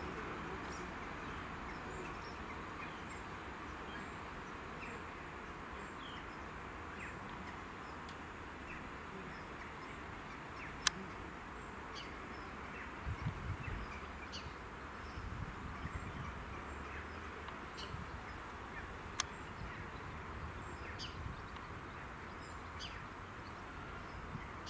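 Faint low rumble of a diesel multiple-unit train running away into the distance, under a steady outdoor hum of insects with faint bird chirps. Two sharp clicks stand out, about eleven and nineteen seconds in.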